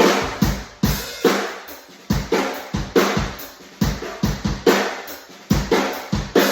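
Drum kit playing a steady groove of bass drum and snare strokes with cymbals over the top, in a roomy, echoing living room picked up by a phone microphone at the far end of the room.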